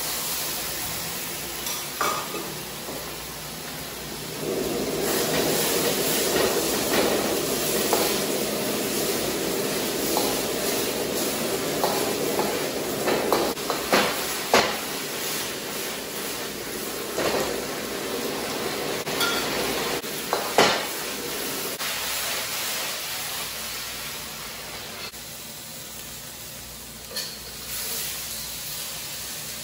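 Fish pieces, bell pepper and onion sizzling in sauce in a hot black wok, with a metal ladle scraping and knocking against the wok as the food is tossed. The sizzle dies down near the end as the wok comes off the flame.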